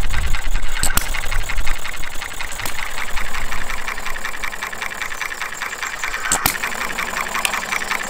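Small model single-cylinder hit-and-miss engine (Jerry Howell Farm Boy) running, with a fast, even mechanical clatter from its moving parts. There are heavier low beats in about the first two seconds, then lighter running as it freewheels between firings under its hit-and-miss governor.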